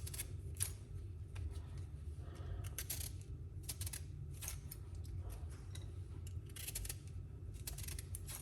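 Vegetable peeler scraping strips of peel off a lemon: short, sharp scraping strokes at uneven intervals, over a low steady hum.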